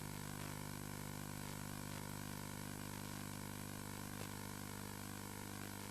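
Steady electronic hum with a low buzz and a layer of hiss, unchanging throughout.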